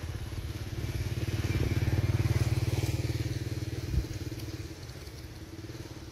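A motorcycle engine running nearby, growing louder and then fading away as it passes. A single knock about four seconds in.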